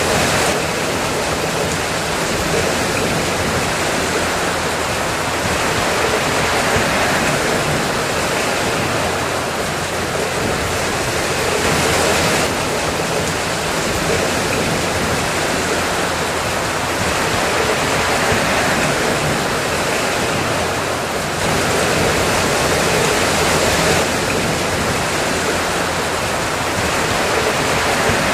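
Steady rain falling: an even, continuous hiss.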